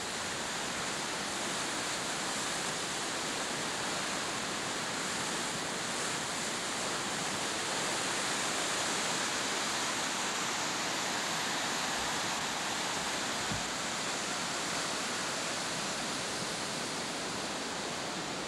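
Mill Creek in flood, about 3,500 cubic feet per second of muddy water rushing fast through a concrete channel: a steady, dense rush of water.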